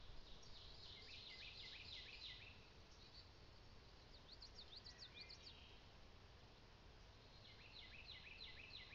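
Faint bird song in the background: three short phrases of quick, repeated high notes, about a second in, around the middle, and near the end, over a faint low outdoor rumble.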